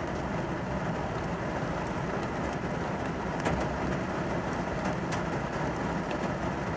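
Steady rumble of a motor vehicle mixed with the hiss of rain, with a few faint ticks.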